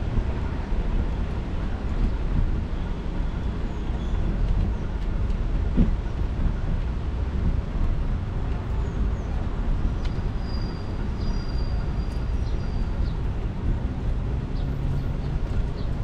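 Steady low rumble of wind and rolling noise on a bicycle-mounted GoPro's microphone while riding, with faint city traffic. A single knock about six seconds in and a few short high chirps in the second half.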